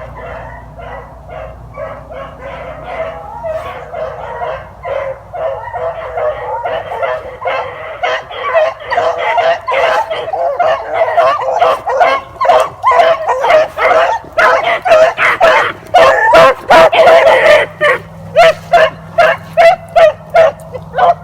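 Pack of three beagles in full cry on a rabbit track: many short, overlapping chop barks that grow louder from about eight seconds in, thinning to separate single barks near the end. The steady baying is the sign the hounds are running the line.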